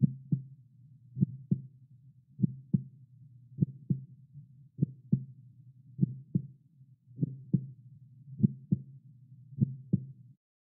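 Slow heartbeat: nine steady double thumps, lub-dub, about one beat every second and a quarter, over a low hum. It stops just before the end.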